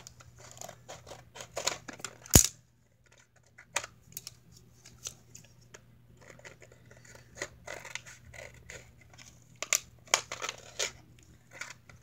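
Scissors snipping through a stiff plastic blister pack and its card backing, in many short cuts with crinkling of the plastic. One loud, sharp click about two and a half seconds in.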